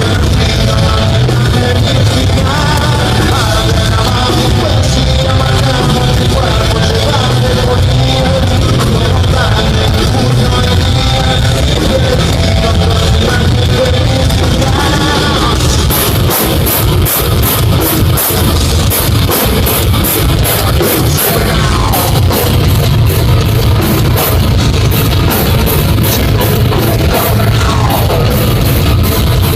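Heavy metal band playing live at full volume, with distorted guitars, bass and drums. A sung vocal line runs through roughly the first half, and from about halfway in the drummer drives the song with rapid, steady cymbal hits.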